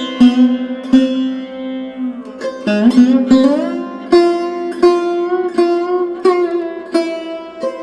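Background music in Indian classical style: a plucked string instrument plays a melody of sharply plucked notes, many bent or slid in pitch, over a steady drone.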